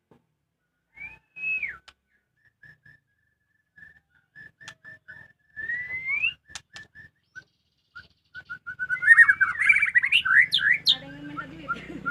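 White-rumped shama (murai batu) singing: a slurred whistle, then a long string of short repeated notes that quicken, breaking into a fast, varied burst of song near the end.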